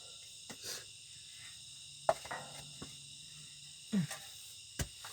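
Steady high-pitched chorus of insects, likely crickets, with a few brief sounds and a couple of sharp knocks near the end.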